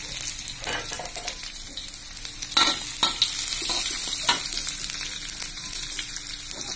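Sliced shallots, garlic and chilies sizzling in hot oil in a wok, the start of a sauté. A few times a metal spatula scrapes and knocks against the pan as they are stirred.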